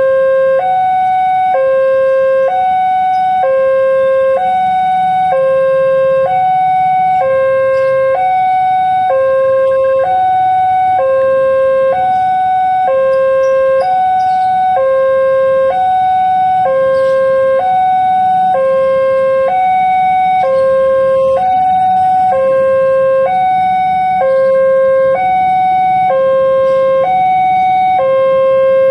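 Railway level-crossing alarm of the old PCL 138 type, sounding a steady two-tone signal that alternates between a lower and a higher tone about once a second: the warning that a train is approaching the crossing.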